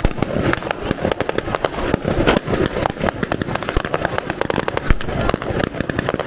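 Rapid blank gunfire: many sharp cracks a second, overlapping.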